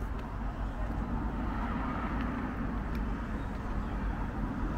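Steady rumbling background noise, with no single event standing out.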